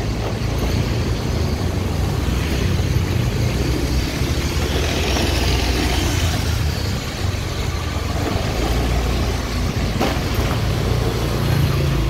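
Steady motorbike engine hum with road noise as motor scooters pass going the other way, and a short click about ten seconds in.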